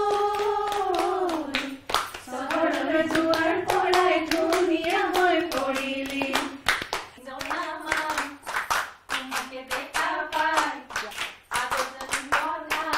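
A group of women singing a song together while clapping their hands in a steady rhythm, about two to three claps a second.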